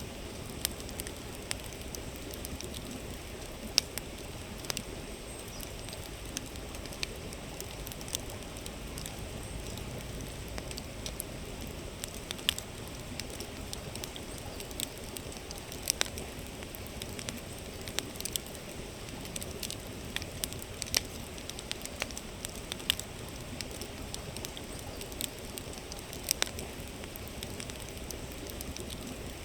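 Campfire crackling with irregular sharp pops, a few of them much louder, over the steady rushing murmur of a flowing river.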